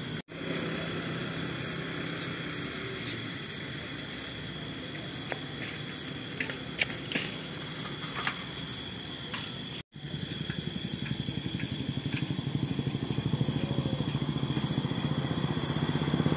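Night insects: a steady high trill with regular chirps about once a second. About ten seconds in, after a cut, a motor vehicle's engine comes in with a low pulsing sound and grows louder.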